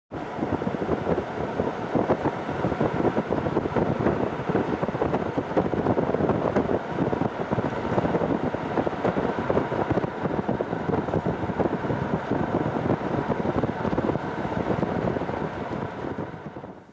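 Wind buffeting the microphone over the road noise of a moving car, a steady rushing noise that drops away near the end.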